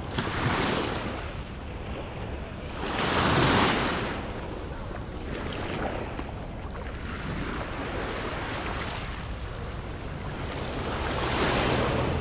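Small waves breaking and washing up on a sandy beach, swelling three times: just after the start, near four seconds, and near the end. A steady low rumble of wind on the microphone runs underneath.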